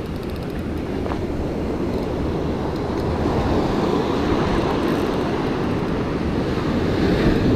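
Wind buffeting the camera microphone over surf breaking and washing up the beach, a steady rumble that grows a little louder toward the end.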